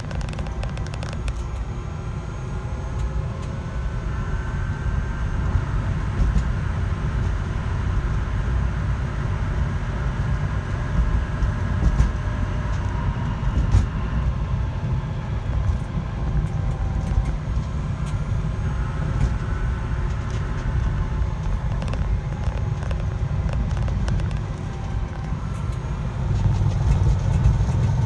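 Motor vehicle running with a steady low rumble, and faint high whining tones that waver up and down over it.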